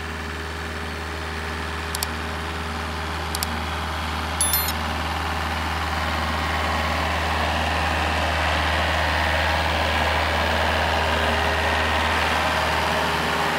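Car engine idling steadily, slowly getting a little louder. Two mouse clicks, about two and three and a half seconds in, then a short bell chime about four and a half seconds in, all from the like, subscribe and notification-bell animation.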